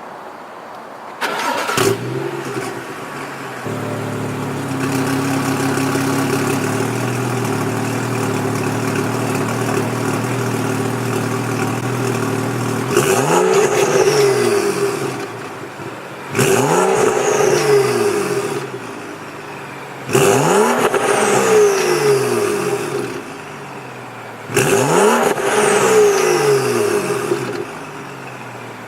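BMW 435i's turbocharged 3.0-litre straight-six exhaust, catless downpipe with stock mufflers: the engine starts about a second in and settles into a steady idle. It is then revved four times, each rev rising and falling back to idle.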